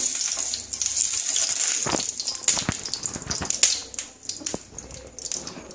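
Oil sizzling with a high hiss on a hot nonstick tawa as it is spread with an eggplant stem, fading after about three seconds, with a few light clicks and taps.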